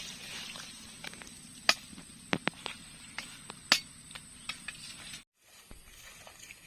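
Irregular sharp clicks and knocks, like hard objects being handled or tapped, over a faint steady background; the sound cuts out completely for a moment about five seconds in.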